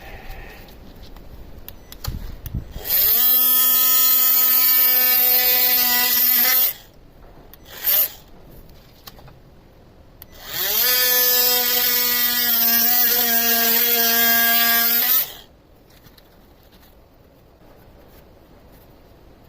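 Electric power tool cutting through a ram's horn, run twice for about four to five seconds each. The motor whine rises quickly as it spins up, then holds steady under load. There is a brief blip between the two runs.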